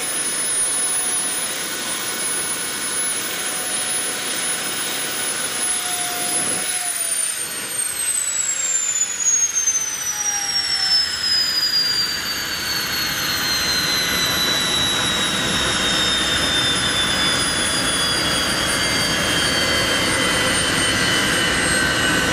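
Homemade model turbojet engine running on a test stand: a steady jet rush under a high-pitched turbine whine. About six seconds in, the whine starts falling steadily in pitch and keeps dropping to the end as the turbine spools down, while the rush carries on.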